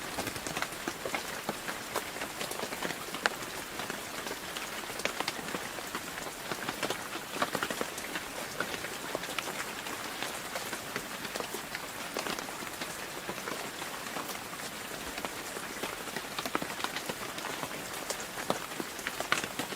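Steady rain: an even hiss of falling rain with many sharp, close drop hits scattered through it.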